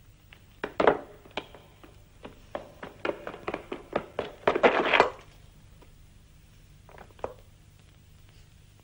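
Running footsteps, a dense run of hard knocks that grows louder and stops about five seconds in. Two lighter knocks follow about two seconds later.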